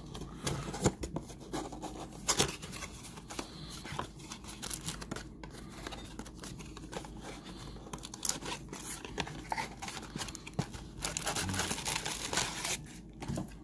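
Cardboard trading-card box being opened by hand: flaps scraping, tearing and rustling, with scattered sharp clicks and a denser stretch of rustling near the end.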